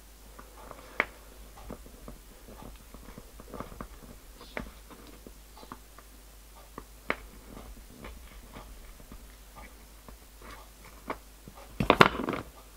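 Light, scattered clicks and taps of fine handwork: a thin strap and tiny pins being fitted with a pointed tool to a stack of MDF discs. A louder clatter comes near the end, as pliers are set down on the bench.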